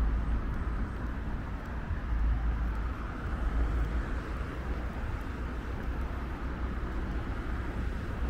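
Street ambience of passing road traffic: a steady wash of traffic noise with a heavy, uneven low rumble.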